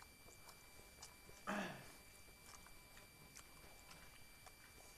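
Faint chewing and eating noises from people eating noodles by hand, with small scattered clicks and one short, louder sound about a second and a half in.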